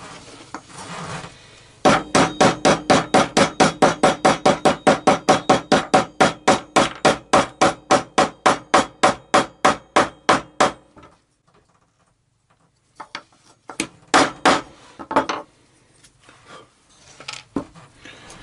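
A steel hammer rapidly tapping a T-nut into the hub hole of a wooden gear. It makes about five quick, loud blows a second for about nine seconds, then stops. After a short pause come a few lighter knocks and clinks of handled hardware.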